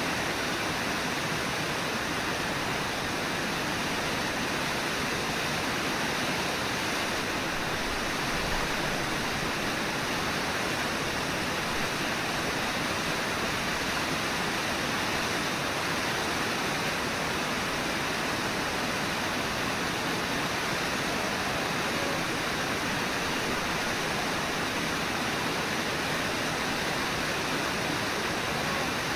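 Steady, even rush of the Brooks River flowing over and below Brooks Falls.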